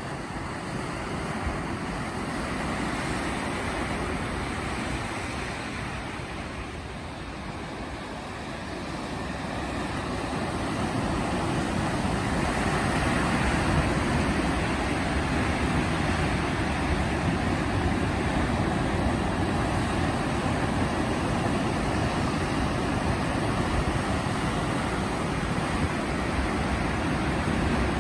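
Pacific surf breaking and washing over rocks at the foot of a cliff: a continuous rushing noise that swells and ebbs with the sets and grows louder about ten seconds in, as a large wave breaks.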